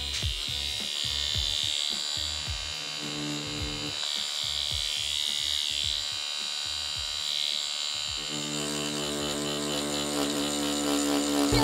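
Tattoo machine buzzing steadily as it shades into a practice skin, under background music that grows fuller about eight seconds in.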